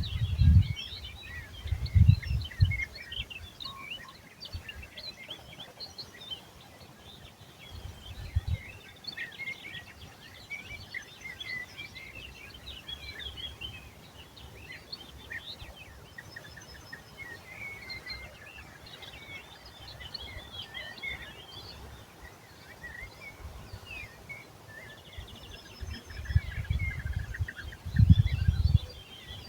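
Many small birds chirping and singing in a steady chorus of short, quick calls. Low rumbling bursts come in the first couple of seconds and again near the end, and they are the loudest sound.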